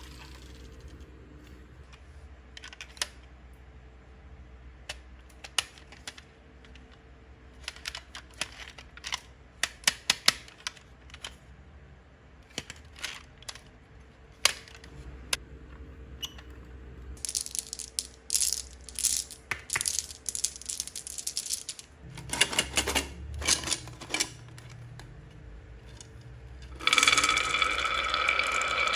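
Marbles clicking and clattering down a HABA wooden marble run: scattered single clicks at first, a denser run of clatter in the middle, then a loud continuous rattle for the last two seconds or so.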